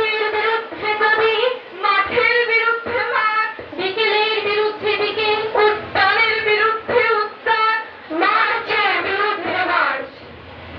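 Girls' voices reciting a Bengali poem aloud through microphones, in a drawn-out, sing-song delivery with long held pitches. There is a brief pause near the end.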